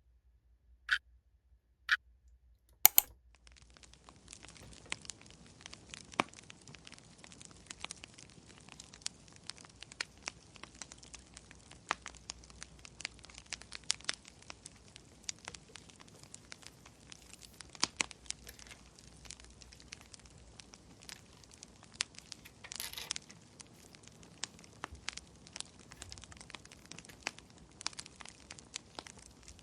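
Wood fire crackling: a steady low hiss with irregular sharp pops and snaps, starting about three seconds in after a few isolated clicks.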